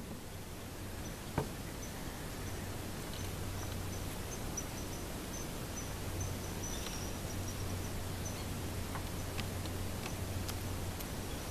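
Quiet outdoor ambience over still water: a thin, high insect tone comes and goes over a low steady hum. A single sharp click comes about a second and a half in.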